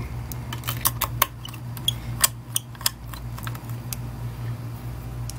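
Irregular small metallic clicks and ticks of a screwdriver driving screws on a hard drive, tightening it back down, over a steady low hum.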